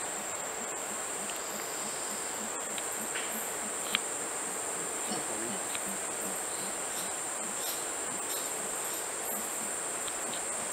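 Steady, high-pitched insect drone, with a faint low pulsing underneath and a sharp click about four seconds in.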